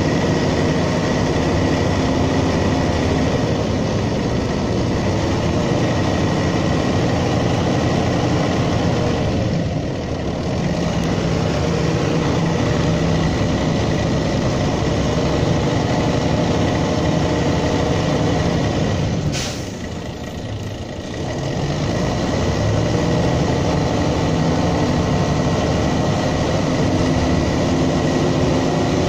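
Mercedes-Benz O305 city bus from 1985 with its OM407 six-cylinder diesel engine, running and driving, heard on board. The engine note rises and falls; it eases off briefly about a third of the way in, and about two-thirds of the way in a brief sharp sound comes just before it drops away for a couple of seconds and then picks up again.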